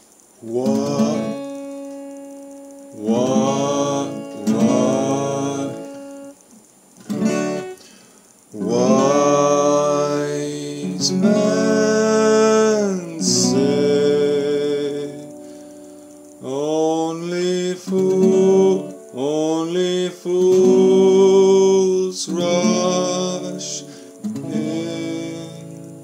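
Acoustic guitar strummed in chords, a few separate chords at first and then longer passages, with a man singing along.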